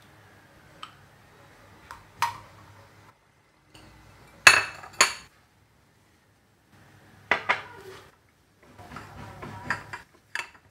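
Dishes being handled around a stainless steel pot: a steel ladle, ceramic plates and a glass clink as they are moved and set down. A handful of sharp clinks, the loudest two close together about halfway through.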